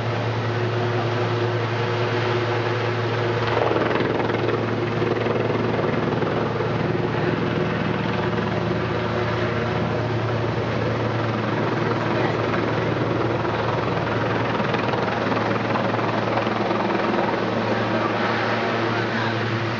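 Helicopter descending to land, its rotor and engine noise steady throughout, with a strong low drone under a broad rushing noise.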